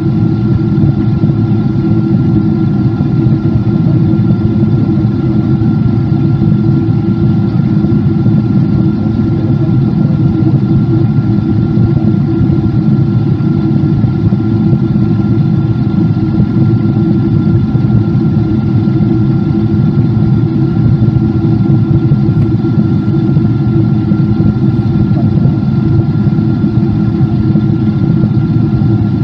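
Inside the cabin of a Boeing 777-200 in flight: its twin Pratt & Whitney PW4000-series turbofan engines drone steadily with rushing air, a steady whine above a deep rumble, unchanging throughout.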